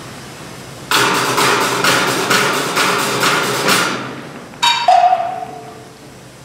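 Percussion ensemble playing a rhythmic passage of evenly spaced, pitched strikes, a little over two a second, which breaks off. Near the end a single sharp strike rings with a tone that drops in pitch and fades.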